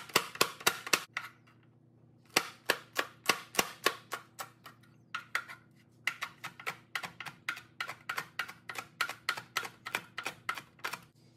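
Chef's knife chopping jalapeño and banana peppers on a cutting board: quick, sharp knocks on the board, about three to four a second, in three runs with short pauses after about a second and again near five seconds.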